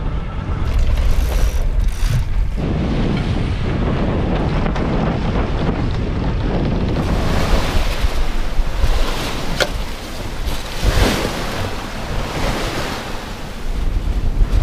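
Strong wind buffeting the microphone over the rush of waves along a sailing yacht's hull at sea. The rushing grows louder and hissier about halfway through, with brief splashes of spray.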